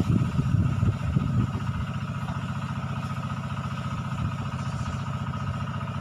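A small engine running steadily at idle, with an even low pulse and a steady whine above it; louder uneven low rumbling in the first second and a half.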